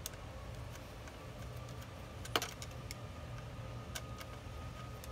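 Insulated flathead screwdriver working the wire terminal screws on a pool pump motor: scattered light clicks and ticks of metal on metal, the sharpest about halfway through, over a low steady hum.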